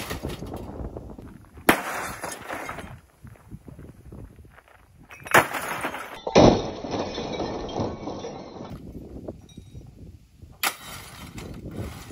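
A sledgehammer smashing a CRT television: about four heavy blows, the loudest about six seconds in, each followed by crunching and clattering of broken plastic casing and glass.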